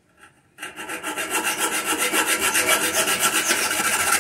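A hand hacksaw cutting off the protruding end of a screw, in quick back-and-forth strokes. The sawing starts about half a second in and grows louder.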